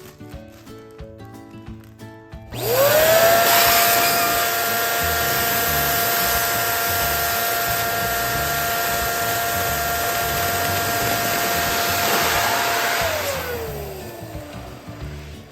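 Electric balloon inflator pump blowing air: the motor spins up about two and a half seconds in, runs with a steady hum and rushing air for about ten seconds while filling a balloon, then winds down with a falling whine.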